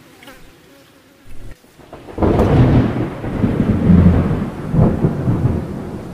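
Thunderstorm sound effect: a rolling thunder rumble starts about two seconds in, swells in waves over rain, and dies away near the end.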